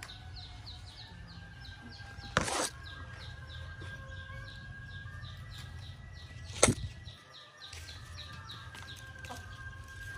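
Steady rapid high chirping, about four short falling chirps a second, with a short rustling burst about two seconds in and a sharp knock near seven seconds.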